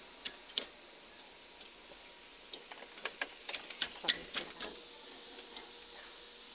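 Light clicks and taps of hard plastic and metal as a car radiator's plastic end tank and mounting clips are handled and pushed into place: a couple near the start, then a quick irregular run of them around the middle.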